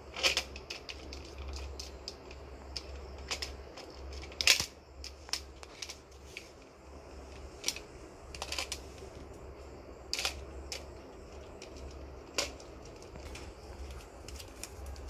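Kittens playing on a hard wooden surface: irregular clicks and taps of paws, claws and a plastic toy, loudest near the start and about four and a half seconds in, over a steady low hum.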